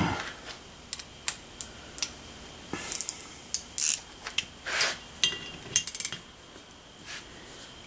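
Scattered light metal-on-metal clicks and clinks of a hand driver and bolt as the bolt is run down through a locking washer into an outboard motor's reed valve plate, with a quick run of ticks about six seconds in.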